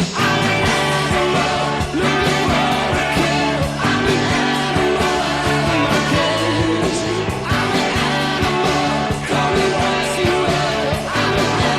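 Hard-rock band demo recording playing, with electric guitar, bass and drums on a steady beat and a male lead vocal.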